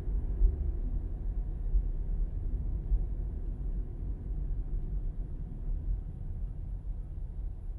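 Low, steady rumble of a car's engine and tyres on the road, easing off and getting quieter as the car slows down behind traffic stopped at red lights.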